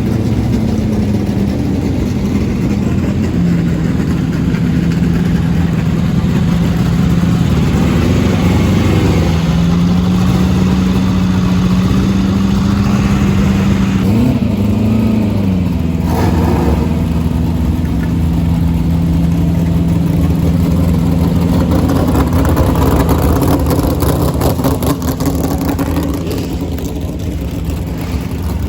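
Vintage racing car engine running steadily, its pitch shifting up and down a little, with a short rise and fall about halfway through.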